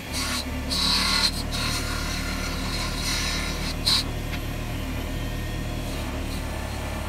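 Mini wood lathe running with a steady hum while polish is rubbed onto the inside of the spinning wooden bangle, giving a rubbing hiss that is strongest in the first four seconds.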